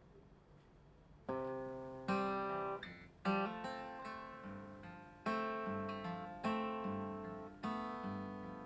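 Acoustic guitar strummed in slow chords, about one strum a second, starting a little over a second in: the opening of a song before the singing comes in.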